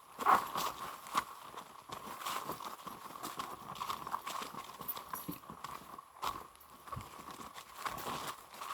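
Footsteps of someone walking a hiking trail: a run of irregular steps, the loudest about a third of a second in.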